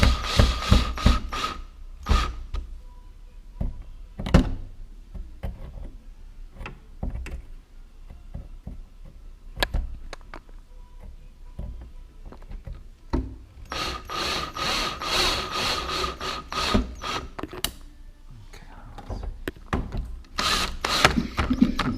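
Screws being driven into the back of a TV through a wall-mount bracket: scattered knocks and rubbing of metal hardware and tools, with two longer stretches of working noise lasting a few seconds, one past the middle and one near the end.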